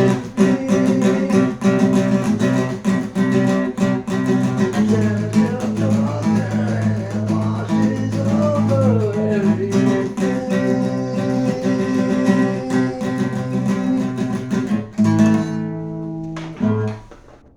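Guitar music: strummed chords under a gliding melodic line, closing on a final chord that rings out and fades away.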